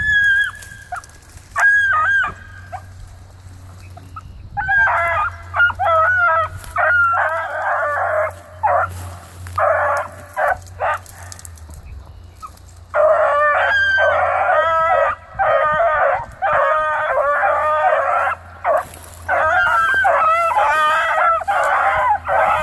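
Pack of young hounds baying, several voices overlapping in long runs of calls. A couple of single drawn-out calls come first, then a short break about halfway, and the baying picks up again.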